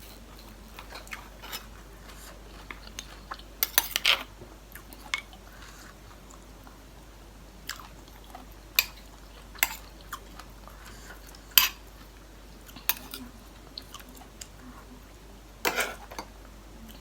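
Eating at the table: scattered sharp clinks of tableware and chewing of a seafood papaya salad, with a short cluster of louder clicks about four seconds in and again near the end.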